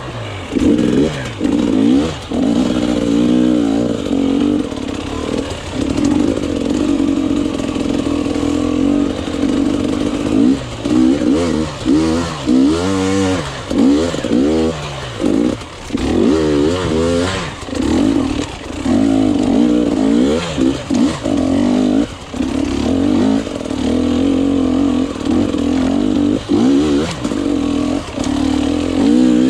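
Enduro motorcycle engine revving up and down over and over as the throttle is opened and closed while riding off-road.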